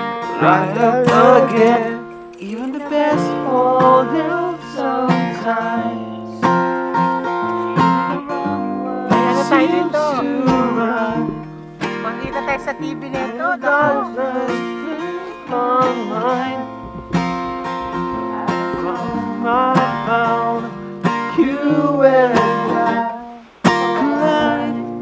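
Acoustic-electric guitar strummed in chords, with a voice singing along.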